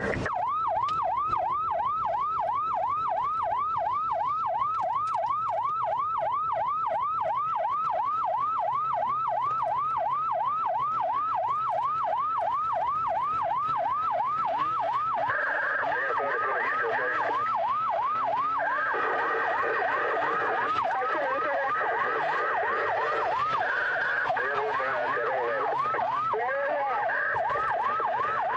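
Police car siren in yelp mode: a fast rising-and-falling wail, about three sweeps a second. About halfway through, other noise joins it.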